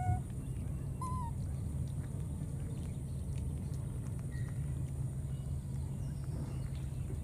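A baby macaque gives a short, wavering coo call about a second in, followed later by a couple of faint high peeps, over a steady low rumble.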